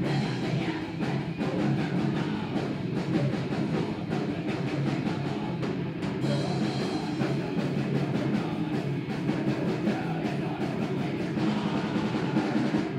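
Live rock band playing loud and steady with a prominent drum kit, recorded with almost no deep bass.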